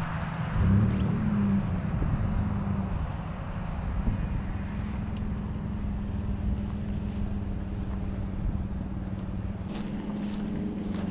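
Pickup truck engine idling steadily, a low even hum that swells slightly about a second in, with wind rumbling on the microphone.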